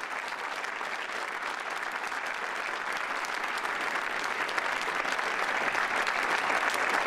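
A large seated audience in a hall applauding, steady and dense, growing a little louder toward the end.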